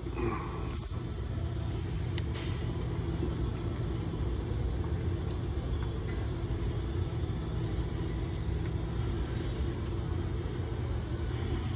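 Steady low mechanical rumble, like an engine or machine running nearby, with a few faint clicks.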